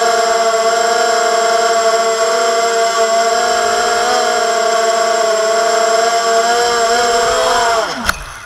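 Hexacopter's six motors and propellers whining steadily in flight, the pitch wavering slightly. Near the end the whine falls sharply in pitch as the motors spin down on touchdown, with a single knock.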